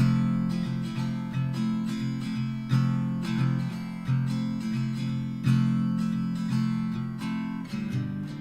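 Background music: acoustic guitar strumming a folk instrumental in steady chords. Near the end it settles on one chord left to ring out.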